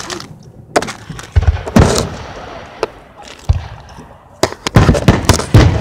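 Aerial fireworks bursting: a series of irregular bangs, several coming in quick succession near the end.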